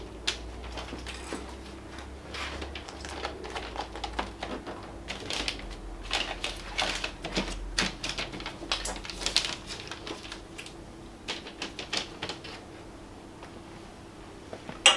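Paper template and masking tape rustling and crackling as they are handled on a car's front fender, in irregular crinkles. A single sharp click just before the end.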